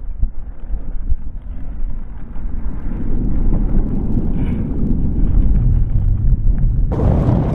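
Wind buffeting the microphone of a pole-mounted action camera as a skier rides through deep powder, with the rush of skis and spraying snow. Near the end a louder, brighter hiss starts suddenly.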